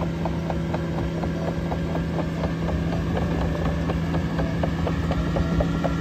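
Caterpillar AP655F tracked asphalt paver running: a steady diesel engine hum, with a quick, uneven series of short metallic clicks and squeaks from the machine, a few a second.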